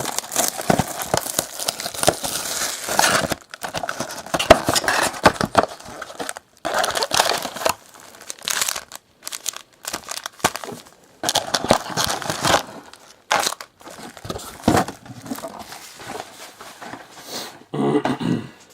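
Foil and plastic trading-card pack wrappers crinkling and tearing open in irregular bursts, with short pauses between handlings.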